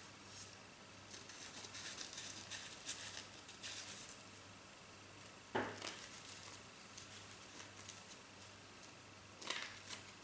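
Scissors snipping a fringe into folded crepe paper: a run of small, soft cuts with paper rustling, and two louder clicks, about five and a half seconds in and near the end.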